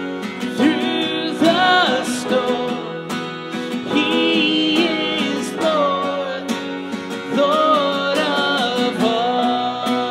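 A worship song performed live: a man singing a melody while strumming an acoustic guitar, with a Nord Electro 5 stage keyboard accompanying.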